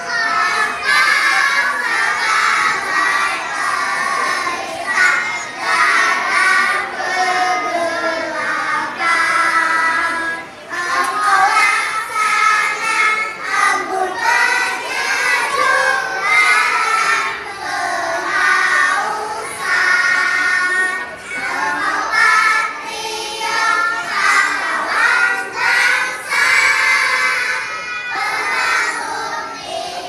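A group of kindergarten children singing a song together, with no break.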